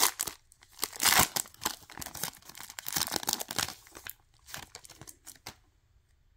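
Foil wrapper of a Topps Chrome trading card pack being torn open and crinkled, in quick irregular rustling bursts. The loudest rustle comes about a second in, and it dies away after about five seconds as the cards come out.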